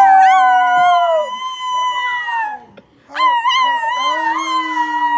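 Several people howling together like wolves, high and low voices at once, each holding long howls. They break off about three seconds in and start a new howl.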